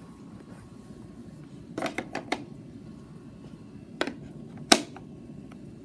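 A few sharp clicks and knocks over a low steady background: a quick cluster of three or four about two seconds in, one about four seconds in, and the loudest a moment after that.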